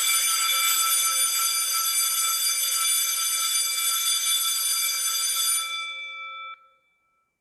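School bell ringing steadily, signalling the change of period. About six seconds in the ringing fades, the bell's tone rings on briefly, and then it cuts off suddenly.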